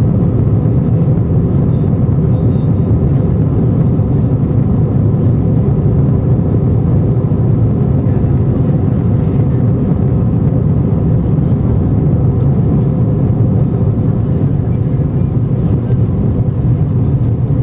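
Steady low drone inside the cabin of an Airbus A320-232 climbing after takeoff: its IAE V2500 turbofan engines and the rush of air over the fuselage, heard from a window seat behind the wing.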